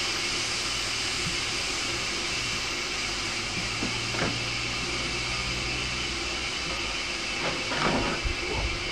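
LBSCR Terrier 0-6-0T tank locomotive standing with steam hissing steadily. A few short knocks come near the end.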